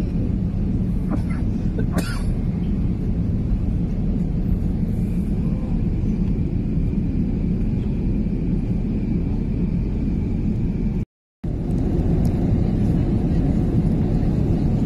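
Airliner cabin noise: the steady low rumble of the engines and rushing air heard from a window seat in flight. It cuts out completely for a split second about eleven seconds in, then comes back slightly louder.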